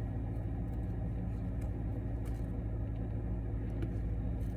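Steady low rumble of a car engine running at idle, with a few faint clicks.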